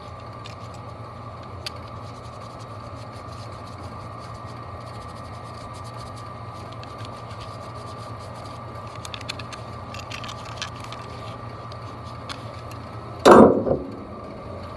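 Third-horsepower blower motor running in an HVAC package unit: a steady hum with a higher whine, a few light ticks, and one loud knock about 13 seconds in.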